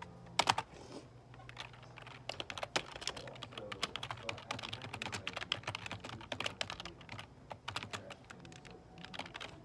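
Fast typing on a computer keyboard, close up: a rapid, uneven run of key clicks with a few short pauses.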